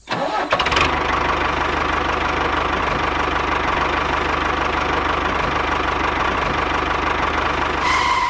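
Small engine of a miniature DIY tractor running steadily with a fast, even knocking rhythm.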